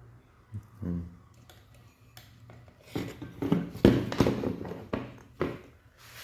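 A run of sharp clicks and light metallic clatter, like small hard objects being handled, tapped and set down, from about three seconds in to about five and a half seconds in.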